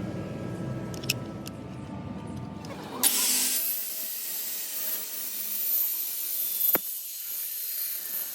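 115 mm electric circular saw switched on about three seconds in, spinning up and running with a steady high hiss and whine, with one sharp click near the end. Before it starts there is a low background rumble.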